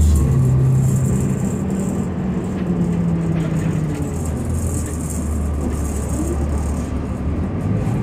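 Cummins ISL diesel engine of a 2005 New Flyer D40LF transit bus running under way, heard from inside the passenger cabin. Its note shifts lower about halfway through.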